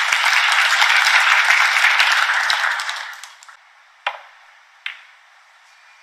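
Audience applauding a potted pink in a snooker arena, dying away after about three seconds. Near the end come two sharp clicks of the cue and snooker balls, about a second apart.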